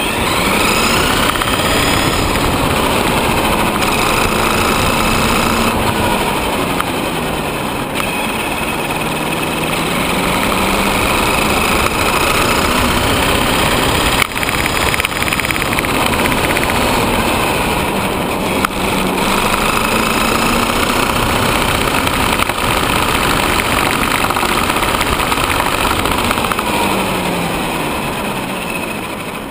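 Traxxas Summit RC truck's electric motor and drivetrain whining, rising and falling in pitch several times with the throttle, over steady tyre rumble on asphalt. There is a brief knock about halfway through.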